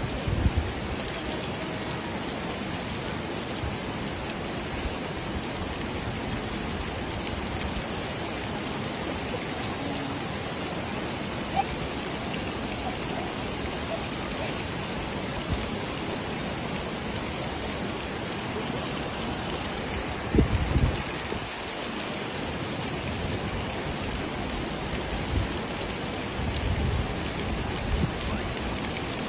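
Steady outdoor water hiss around a steaming hot-spring pool, with a few low bumps about two-thirds of the way through and again near the end.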